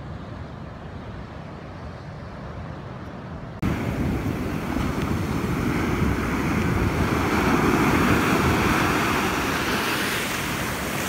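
Ocean surf rushing onto a sandy beach, with wind on the microphone. About three and a half seconds in, the sound jumps louder, then a wash of surf swells and eases off.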